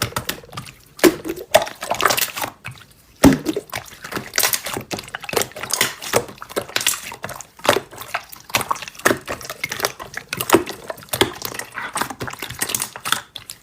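Slime being pressed and pulled by hand, giving an irregular stream of wet clicks and pops.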